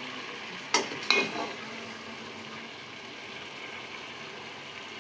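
Steady sizzling hiss of cooking on the stove, with two sharp metal clanks about a second in, the second ringing briefly, from a metal ladle knocking against cookware.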